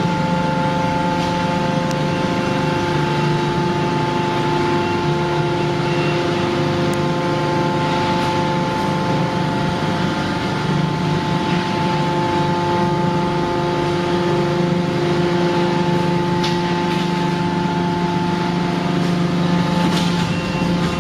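YQD-2500 hydraulic car baler running: a steady hum with several held tones at an unchanging pitch from its motor and pump, with a few faint metallic clicks.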